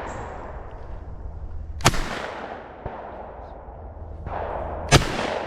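Two shotgun shots fired at clay targets, about three seconds apart, each sharp crack trailing off in a long echo. The second shot is the louder.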